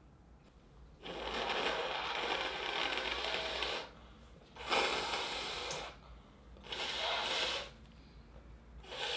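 A woman breathing loudly and noisily through her nose in a run of long, hissing breaths: one of about three seconds, then two shorter ones, with another starting at the very end.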